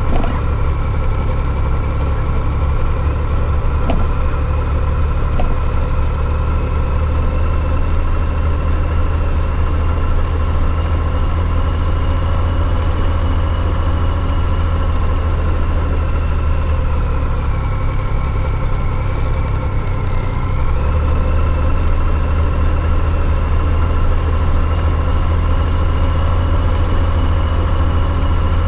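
Honda GL1500 Gold Wing's flat-six engine running steadily at low road speed. About two-thirds of the way through the engine note drops for a few seconds, then picks back up.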